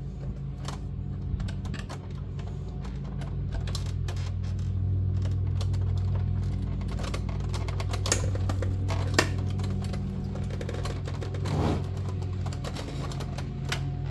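Irregular plastic clicks, knocks and creaks as a tightly seated plastic console tray is pulled and worked loose by hand, over a steady low hum.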